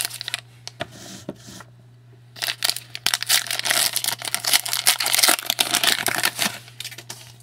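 Foil hockey card pack wrapper being torn open and crinkled by hand: a few crackles at first, then a dense stretch of crinkling and sharp crackles from about two and a half seconds in until shortly before the end, over a steady low hum.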